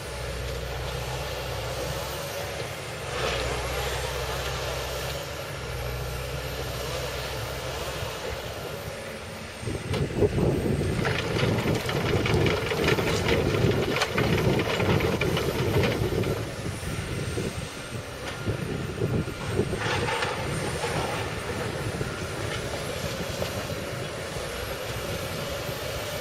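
Excavator's diesel engine running steadily, then louder and rougher for several seconds about ten seconds in as the machine works, with a run of knocks and rattles, before settling back to a steadier run.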